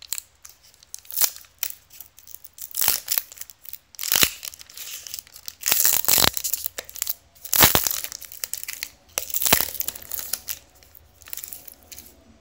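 Basketball card packs' wrappers being torn open and crinkled by hand: a string of irregular rips and crinkles, several of them loud.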